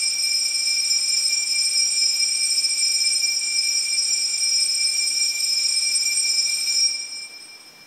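Altar bell ringing without a break for the elevation of the chalice at the consecration: a steady, high-pitched ringing that stops about seven seconds in and dies away.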